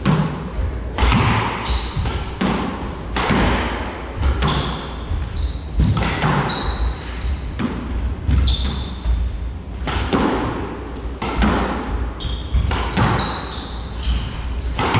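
A squash rally: the ball cracks off racquets and the court walls about once a second, with short high squeaks of court shoes on the hardwood floor between the shots, the hits ringing in the enclosed court.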